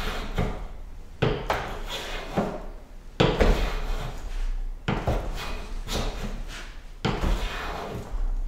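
No. 4½ smoothing plane taking light shavings off a maple board: about four long strokes some two seconds apart, each starting sharply and trailing off. The iron is due for rehoning and no longer cuts as well as it did.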